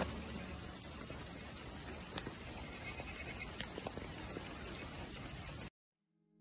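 Rain falling on puddles and wet tarmac: a steady patter of hiss with scattered sharp drop ticks. It cuts off suddenly near the end.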